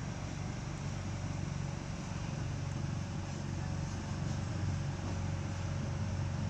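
A motor running steadily with a low, even hum, over a constant background hiss.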